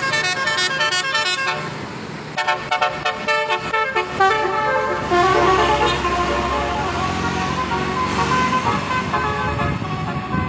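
Bus fitted with a Basuri telolet horn, its multiple trumpets playing a melody: two quick runs of short notes, then slower, longer held notes. A vehicle engine rumbles underneath.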